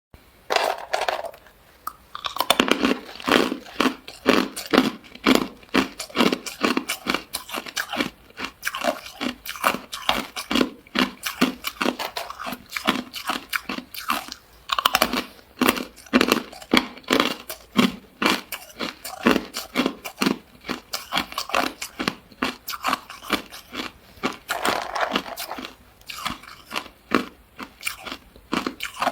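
A person chewing ice close to the microphone: a steady run of hard, sharp crunches, about two to three a second, with a few short pauses between mouthfuls.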